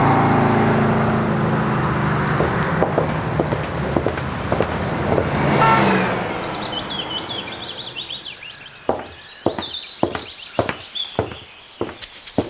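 A loud rushing, engine-like sound that falls and fades over the first six seconds, then birds chirping, with a run of sharp taps in the last few seconds.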